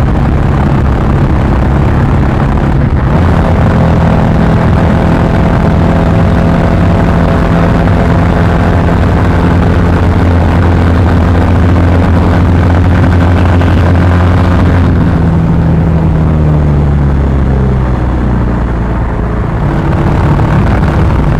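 BS6 Royal Enfield Classic 350's single-cylinder engine and exhaust running hard at its top speed of about 110 km/h. The note holds steady, then falls in pitch about three-quarters of the way through as the throttle is eased, and settles again at a lower, steady pitch near the end.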